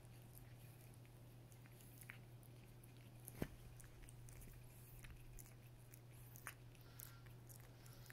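Faint wet licking and small clicks of a Persian cat grooming her paw and fur with her tongue, over a low steady hum, with one sharper click about three and a half seconds in.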